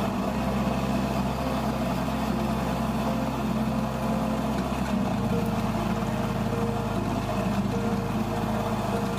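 Drill press running steadily while its twist drill bit bores into a pine board.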